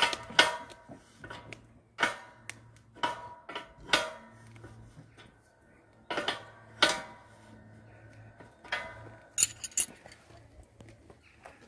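A steel spanner clinking against a nut and the steel frame as the nut is turned: about ten sharp metallic clinks, each with a brief ring, at uneven intervals, with a quick cluster of three near the end.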